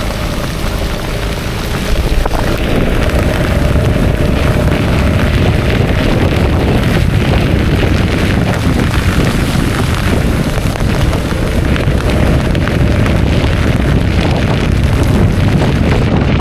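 Heavy wind buffeting an action camera's microphone on a moving motor scooter: a loud, steady rush, strongest in the low end.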